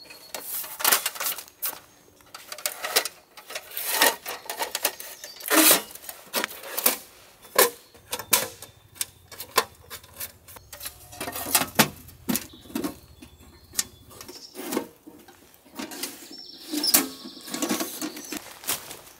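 Small folding steel camping stove being unfolded and assembled by hand: thin metal panels, hinges and legs clicking and clanking in many quick, irregular strokes.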